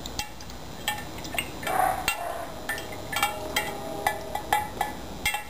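A plastic spoon stirring vinegar in a glass jar, clicking and clinking irregularly against the glass as a dose of calcium hydroxide is mixed in.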